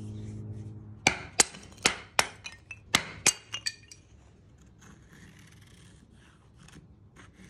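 A quick run of about ten sharp clacks and clinks over two and a half seconds, then faint, rough scraping strokes as a D2 steel knife blade shaves curls off a dry wooden stick to make a feather stick.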